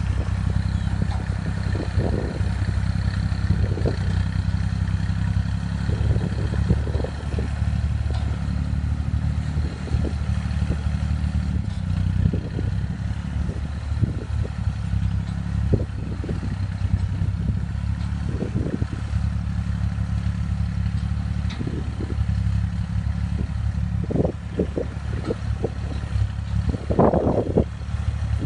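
A 60-horsepower diesel farm tractor's engine running steadily under load as it drags a rear grading blade through loose soil, with scattered short clatters and a louder burst of them near the end.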